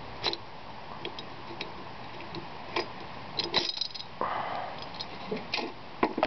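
Light metallic clicks and taps as the finned cylinder head of a small sleeve-valve engine is handled and lifted off its studs, with a cluster of clicks about three and a half seconds in and a brief hiss just after.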